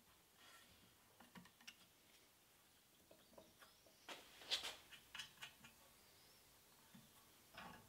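Near silence broken by scattered faint clicks and taps, with a louder cluster of sharp clicks about four and a half seconds in and another short click near the end.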